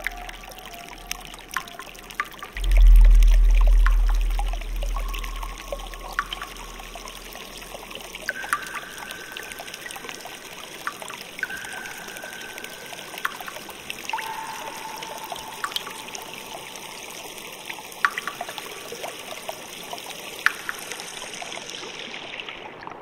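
Melting ice in water: steady trickling with scattered sharp cracks and clicks, and a deep rumble about three seconds in that fades over the next two seconds. Several short, steady high tones sound through it.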